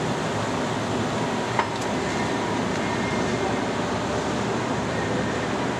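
Leblond Model NI heavy-duty engine lathe running under power: a steady mechanical drone, with a single sharp click about a second and a half in.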